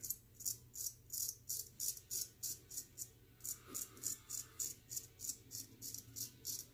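Gold Monkey 777 straight razor scraping through three or four days' stubble in short, even strokes, about three a second, a crisp rasp with each stroke.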